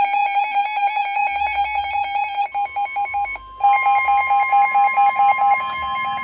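Emergency Alert System signal on weather radio: rapid chopped data-burst tones with a brief break a little past three seconds in, and a steady alert tone joining about two and a half seconds in. These tones lead into a flash flood warning.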